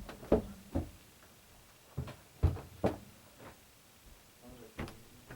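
Six irregular thumps and knocks: two close together near the start, three about two to three seconds in, and one near the end.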